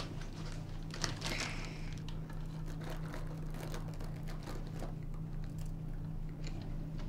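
Plastic packet crinkling and rustling as it is handled, with scattered small clicks, over a steady low hum.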